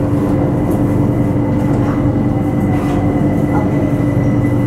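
Bangkok BTS Skytrain car running along the track, heard from inside the car: a steady rumble with an unchanging electric hum.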